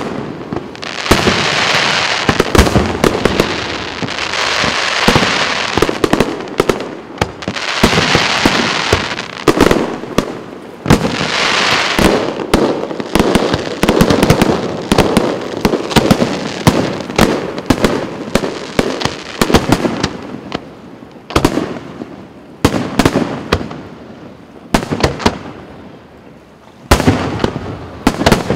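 Fireworks display: aerial shells bursting in quick succession, several bangs a second, with dense crackling between them in the first half. The bangs thin out after about twenty seconds, then a loud new flurry comes near the end.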